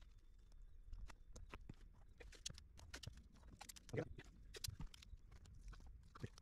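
Faint scattered clicks, taps and rustles of hands pressing paper stencils and painter's tape onto an inflatable dinghy's tube, with a slightly louder tap about four seconds in.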